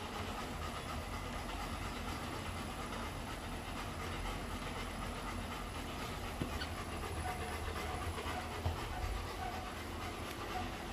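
Golden retriever panting as it walks on a running treadmill, over the steady rumble of the treadmill belt and motor, with a couple of faint knocks partway through.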